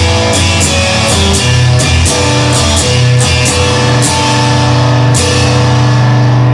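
Rock music without vocals: guitar chords over bass and a drum kit, the drums dropping out about five seconds in while a chord is held.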